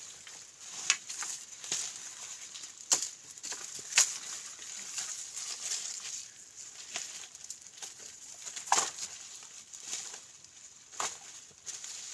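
Dry vines and bamboo stakes rustling and snapping as they are pulled and handled, with irregular sharp cracks over a steady rustle.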